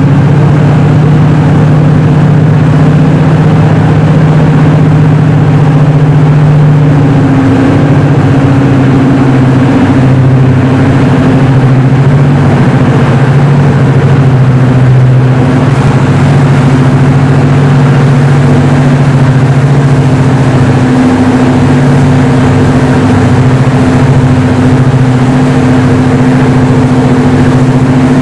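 Class 55 Deltic diesel locomotive's twin Napier Deltic two-stroke engines working under power as it hauls its train away. A loud, steady engine drone that shifts slightly in pitch a few times.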